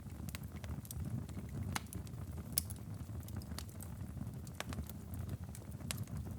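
Wood fire in a fireplace crackling, with scattered sharp pops (one louder about two and a half seconds in) over a steady low rumble.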